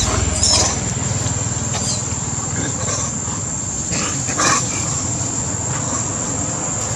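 Long-tailed macaques calling: a short squealing cry about half a second in and another about four and a half seconds in, over a steady high background tone.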